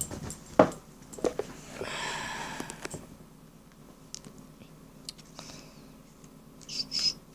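Pokémon trading cards being handled on a table: a sharp knock about half a second in, then a stretch of rustling and light ticks as a stack of cards is picked up and sorted by hand.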